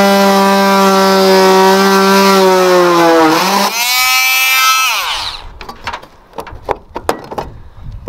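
Corded oscillating multi-tool buzzing as it cuts through a metal roof vent pipe. Its pitch sags around three seconds in as the blade bites, and it stops about five seconds in. A few light clicks and knocks follow.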